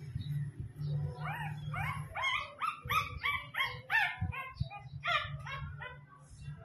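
Young puppy yelping over and over while being held in the hands, short high cries about three a second that start about a second in and die away near the end.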